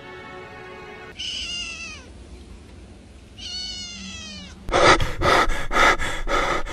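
A kitten meowing twice, each a short high call that falls in pitch, about a second in and again about three and a half seconds in. From about two-thirds of the way through, a much louder noise pulses about four times a second.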